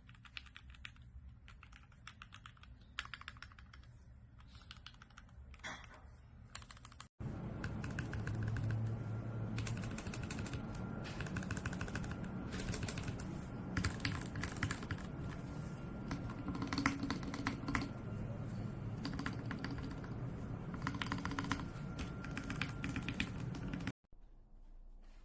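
Mechanical keyboard fitted with factory-lubed Gateron Pro Milky Yellow linear switches being typed on, a steady run of key presses. About seven seconds in the sound cuts abruptly to a louder, fuller recording of the typing with a low hum under it, and near the end it cuts back to the quieter typing.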